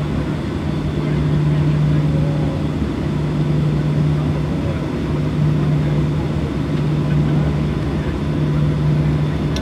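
Boeing 737-800 cabin noise during taxi: the jet engines' steady drone with a low hum and rumble, heard through the cabin.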